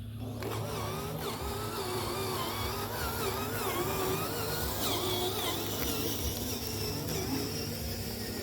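Whine of the small electric motors of radio-controlled construction machines, the pitch wavering up and down continuously as the throttle changes, over a steady low hum.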